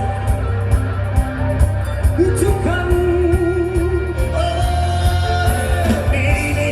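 Live band music: a held, wavering sung or played melody over steady bass and an even drum beat.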